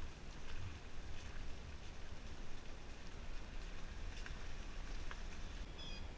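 Vehicle rolling slowly, heard through its open side window: a steady low engine and tyre rumble with a hiss of wet road noise and a few faint scattered clicks.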